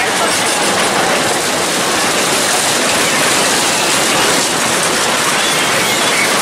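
Small dragon-style kids' roller coaster train running past on its steel track, a steady loud noise of wheels rolling on the rails.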